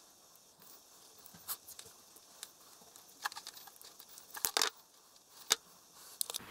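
Tape being peeled from a roll and handled while it is wrapped around a plug: scattered soft crackles and clicks, a louder crackle a little after four seconds and a sharp click near the end.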